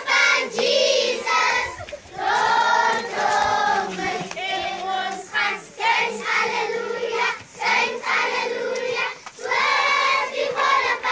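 A large group of children singing a song together in unison, line after line with short breaks between phrases.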